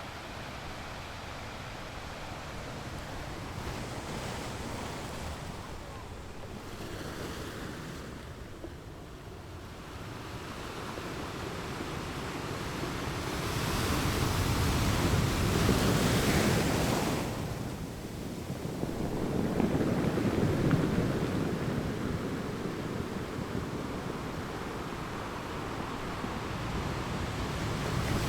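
Wind rushing over the microphone with the wash of the sea, an even noisy rush that swells up strongly about halfway through, eases briefly, then swells again.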